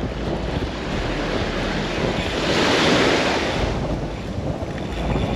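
Shallow surf washing and breaking along the shore, with wind buffeting the microphone; one wave surges louder about halfway through.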